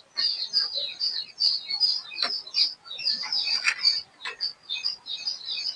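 Small birds chirping rapidly and continuously, with a few sharp clicks about two and four seconds in.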